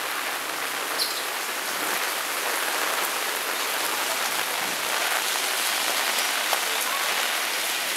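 Steady rain shower falling, an even hiss with faint scattered drop ticks.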